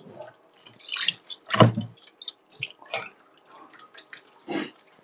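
Dishes being washed by hand in a kitchen sink: water splashing and dripping, with irregular knocks and clinks of crockery, the loudest about a second and a half in.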